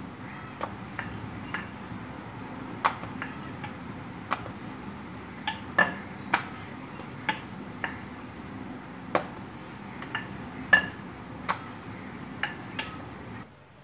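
Dough balls being rolled out into rounds with a wooden rolling pin on a board: irregular light knocks and clinks, some with a short ringing tone, every half second or so, over a steady background hiss.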